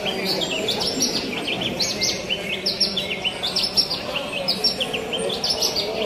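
Many caged Javan bush larks (branjangan) singing at once: a dense, unbroken tangle of rapid high chirps and trills, over a low murmur of crowd voices.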